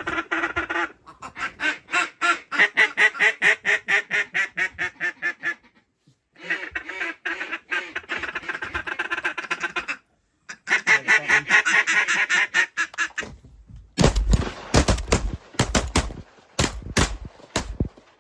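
Mallard duck call blown in long runs of rapid quacks, three runs with short breaks, calling birds in to the decoys. Near the end a quick volley of about half a dozen shotgun shots from several guns.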